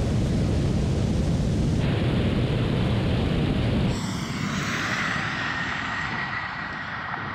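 Rushing wind and tyre noise from electric SUVs racing at about 125 mph, with no engine note. The sound changes abruptly twice, about two and four seconds in, and later a faint steady whine sits over the rush.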